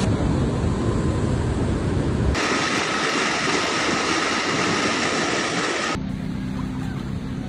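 Water noise in three spliced clips. First an even rush, then water gushing from a flood pump's discharge pipe into a river, with a steady whine over the rush. After a cut about two seconds from the end, a low steady hum with a fainter rush.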